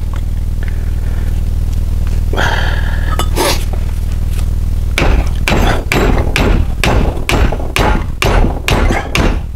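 Hammer blows on metal in quick succession, about three a second through the second half, striking at a rusted-in hub seal that will not come out. A couple of scraping sounds come before the blows, over a steady low hum.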